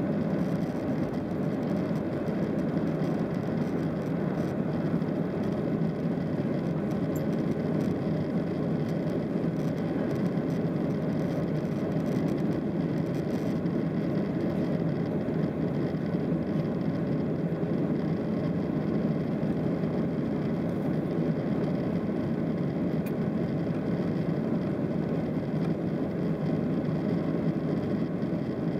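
Cabin noise of a Boeing 737-700 climbing out just after takeoff: its CFM56-7B turbofan engines running steadily at climb thrust, with airflow along the fuselage, heard from a seat over the wing as an even, low rushing noise.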